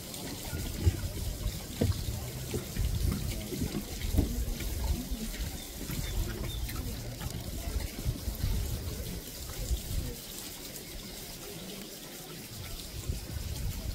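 Indistinct chatter of onlookers, with a steady rushing hiss behind it.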